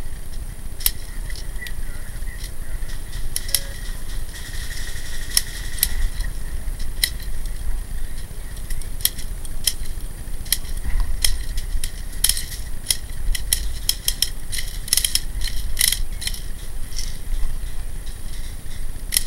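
Irregular sharp mechanical clicks and ticks, some coming in quick clusters, over a steady low rumble.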